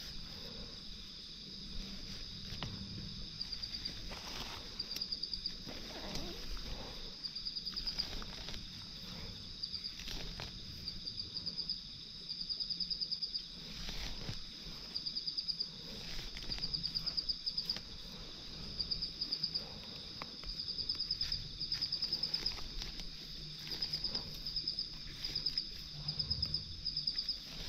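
Insect chorus with a steady high-pitched buzz, broken every second or two by short pulsing trills. Scattered rustles and light knocks come and go beneath it.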